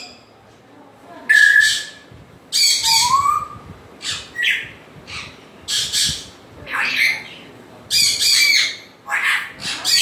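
African grey parrot giving a string of short squawks and whistles, about one a second after a quiet first second, one of them a short rising whistle.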